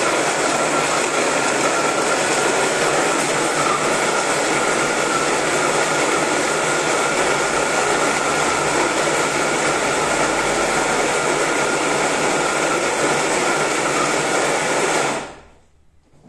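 Electric hand blender on a mini-chopper bowl running steadily at full speed, its blades chopping bread, garlic and basil into fresh breadcrumbs, with a steady whine over the motor noise. It stops suddenly near the end.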